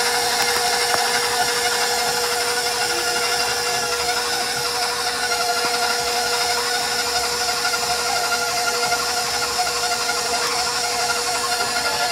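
Electric stand mixer running at a steady speed, its flat beater turning through thick chocolate chip cookie dough in a steel bowl, with a constant motor whine.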